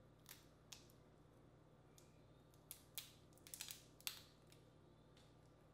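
Boiled crawfish shell cracking and snapping as it is peeled by hand: a few crisp single cracks, then a quick run of them between about three and four seconds in, the loudest just after four seconds.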